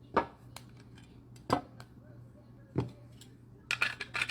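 Trading cards being handled and set down, giving three sharp clicks about a second and a quarter apart, then a quick run of clicks near the end.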